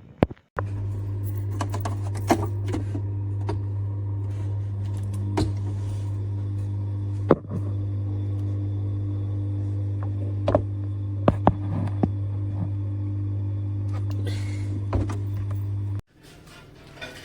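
Espresso pod machine's vibratory pump buzzing steadily while it pushes water through an ESE pod, with scattered clicks over it. The pump starts abruptly, dips briefly about halfway through, and shuts off abruptly near the end.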